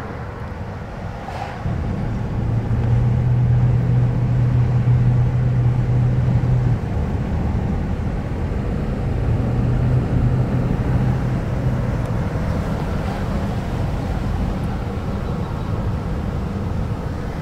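Road noise inside a moving car's cabin: a steady low drone of engine and tyres, louder from about two seconds in until about seven seconds.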